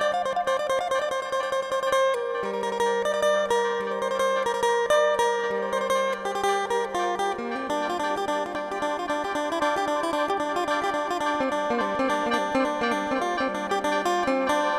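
Phin, the Isan plucked lute, playing a fast instrumental melody of quick plucked notes over a steady low drone note.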